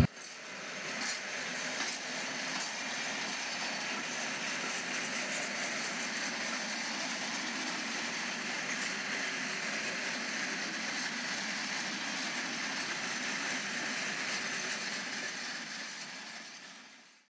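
Z-gauge model diesel locomotive hauling tank wagons around the track: a steady whir of the tiny motor and rolling wheels. It fades in over the first couple of seconds and fades out near the end.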